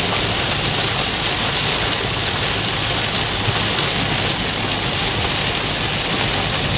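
Heavy thunderstorm rain falling steadily, a constant hiss of downpour with no break.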